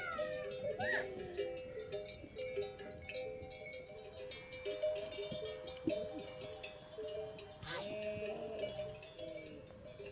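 Livestock neck bells clinking and ringing repeatedly, with a short animal call about eight seconds in.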